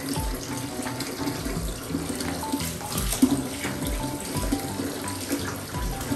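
Bath water running steadily, with background music carrying a melody and a regular low beat.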